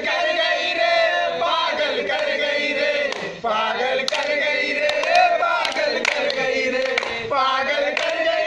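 A group of young men singing together loudly in unison, holding drawn-out notes, with a few sharp clicks over it.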